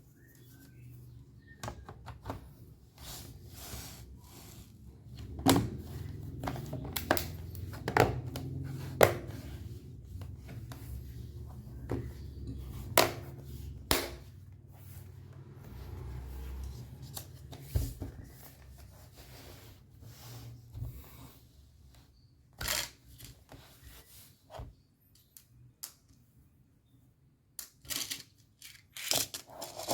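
Scattered clicks, taps and knocks of hands working on an opened laptop with small tools and parts, over a low rumble that fades out a little past the middle; the clicks thin out near the end.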